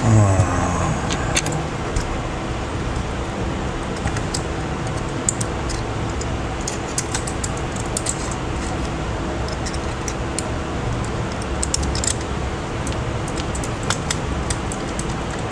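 Small scattered clicks and light taps of tools and small phone parts being handled on a repair bench, over a steady background hum. A short louder sound falling in pitch opens it.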